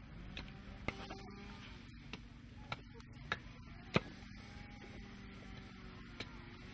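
A few sharp, irregular wooden knocks and taps, the loudest about four seconds in, as a piece of wood is worked by hand in a wooden block on a timber bench. A steady low hum runs underneath.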